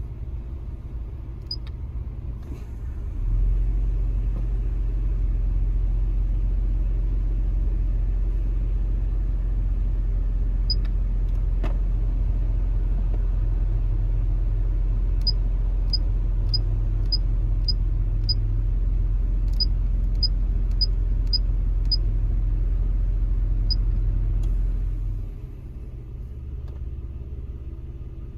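Steady rumble of a 1988 Nissan 300ZX Turbo's HVAC blower heard inside the cabin. A little over three seconds in it steps up louder and holds steady, then drops back down near the end, as the fan speed is switched up and back. Light clicks of the controls sound here and there, with a quick run of them in the middle.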